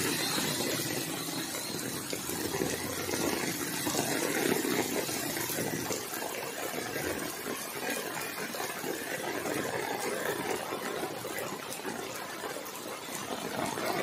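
Heavy rain pouring down steadily onto a waterlogged road and flooded ground.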